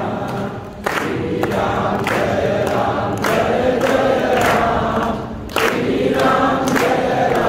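A group of voices singing a Hindu devotional chant together, line after line, with short breaks between phrases, the clearest about five seconds in.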